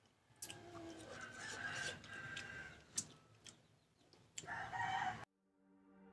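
A rooster crowing faintly for about two seconds, then a second, shorter call about four and a half seconds in, with a crunching bite of green mango between them. Everything cuts off just past five seconds in.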